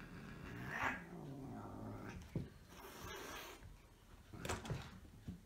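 Two cats play-fighting: one gives a low, falling growl with a hiss about a second in, and paws thump and scuffle several times on the rug and floor.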